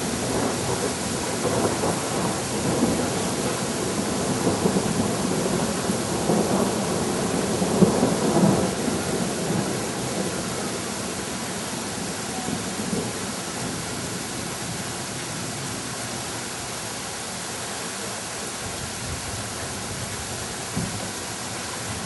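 Heavy rain pouring down with a steady hiss, under a long, uneven rumble of thunder that is loudest in the first half and fades out by about ten seconds in.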